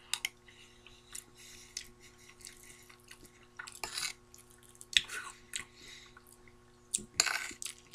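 Someone eating a creamy stew and stuffing: a metal spoon scooping and lightly scraping in a ceramic bowl, with soft wet chewing sounds in scattered short bursts.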